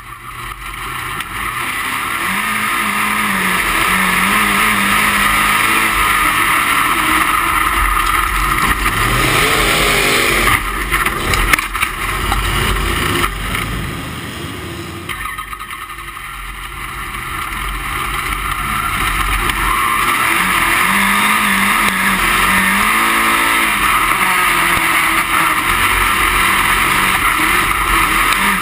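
Dirt-track race car engine running hard at racing speed, heard from the cockpit with a loud, dense roar. The engine note drops about halfway through, then builds back up.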